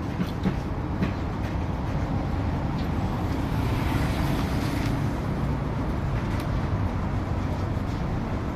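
Steady low mechanical rumble, like a running engine or machine, with a few light clicks in the first second.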